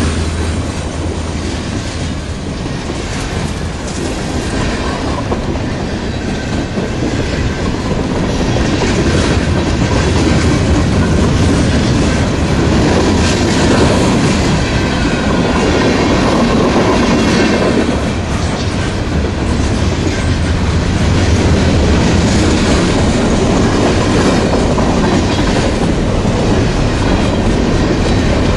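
Freight train cars rolling past close by, boxcars and then hopper cars: a steady loud rumble of steel wheels on the rails with clickety-clack over the rail joints.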